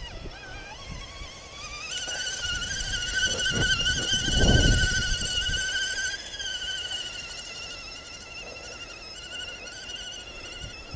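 Electric motor and gearbox of an RC scale crawler truck whining as it drives through mud, the whine rising and falling slightly with the throttle. A louder low rumble comes about four seconds in.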